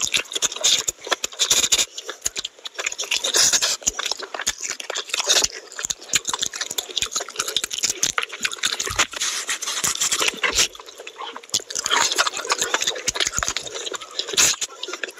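Close-miked eating of chicken curry: wet chewing, lip smacking and slurping as meat is sucked off the bones, a dense run of quick mouth clicks and squelches.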